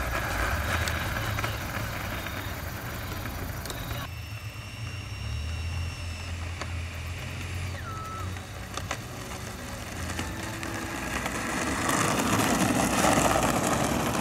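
Electric ducted fan of a 90mm RC jet at low throttle while taxiing, a high steady whine that drops sharply in pitch about eight seconds in as the throttle comes back. A rush of noise builds in the last couple of seconds.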